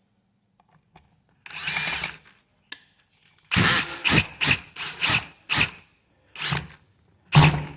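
Power drill driving long sheet metal screws into a metal electrical box: one short run, then a quick series of brief trigger pulls as the screws are snugged down tight.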